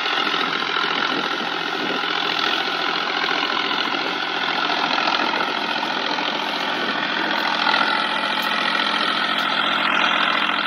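John Deere tractor's diesel engine running steadily under heavy load as the tractor stands on its rear wheels, digging into sand with its front wheels in the air.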